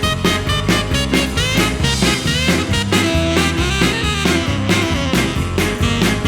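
Swing-style rhythm-and-blues band playing an instrumental break: a saxophone line over a stepping bass line and drum kit.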